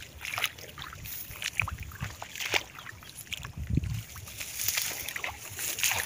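Footsteps wading through a flooded rice paddy: irregular sloshes and squelches in shallow water and mud, with rice plants rustling as they are pushed aside.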